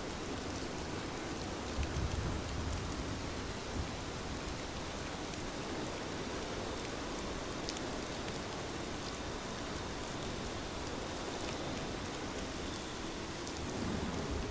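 Steady water noise: an even hiss with scattered faint ticks, a few low thumps about two seconds in, and a slightly louder low rush near the end.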